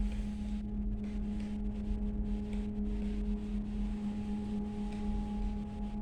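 Stepper motor driving the X axis of a homemade CNC machine, running at a steady speed with an unbroken, even-pitched whine.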